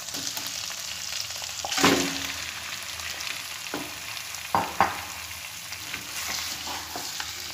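Raw chicken pieces tipped into hot oil and fried ginger-garlic paste in a pan, sizzling steadily, with a loud burst about two seconds in as the chicken lands. A wooden spatula then knocks against the pan a few times as the pieces are stirred.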